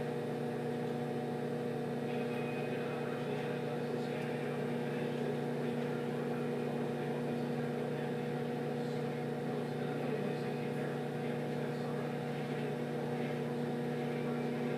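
Microwave oven running, a steady electrical hum that holds constant, with a few faint knocks from kitchen handling.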